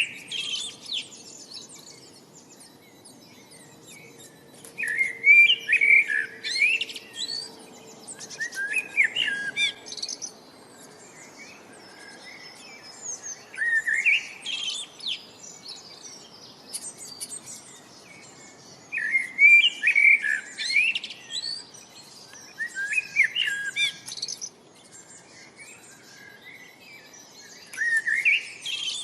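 Songbird singing in short, rapid phrases of high chirping notes, repeated every few seconds over a faint steady background hiss.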